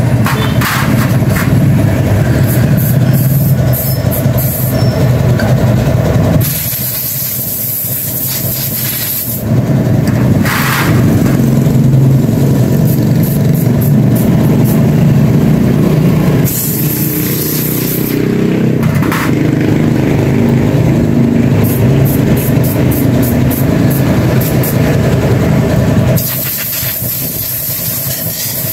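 An engine running close by, its pitch shifting up and down, broken three times by a few seconds of hissing air.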